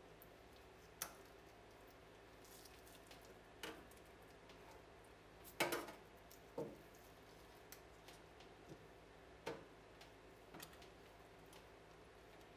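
Metal spoon pressing and prodding wet, dye-soaked yarn in a stainless steel pan: irregular soft squishes and light clicks of spoon on steel, the loudest knock about halfway through.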